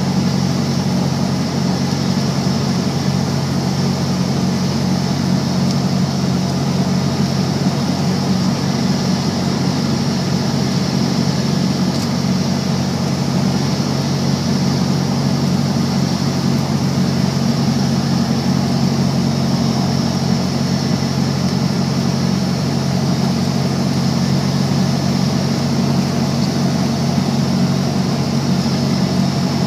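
Light plane's piston engine and propeller running steadily in cruise, heard from inside the cockpit as a loud, unchanging low drone.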